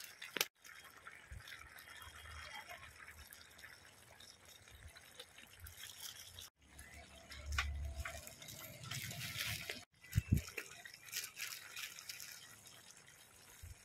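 Wet curry sloshing in a large aluminium pot as a flat metal spatula stirs it, with small scrapes and knocks of the spatula against the pot. The sound breaks off abruptly a few times.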